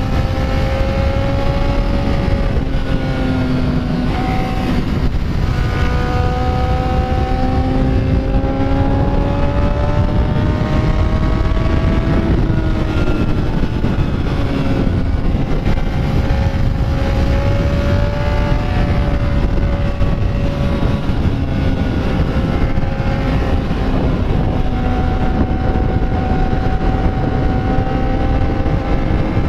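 Motorcycle engine running under way in second gear, its note rising and falling slowly through a series of curves, over a steady rush of wind.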